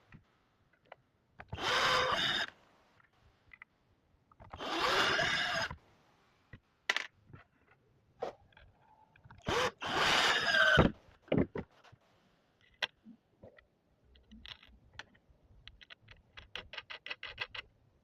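Power drill driving screws into wood, whirring in three bursts of about a second each, with scattered clicks between them and a quick run of clicks near the end.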